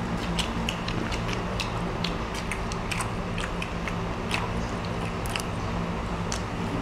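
Eating sounds at a table: irregular small clicks and crackles of grilled shrimp shells being peeled and chewed, over a steady low hum.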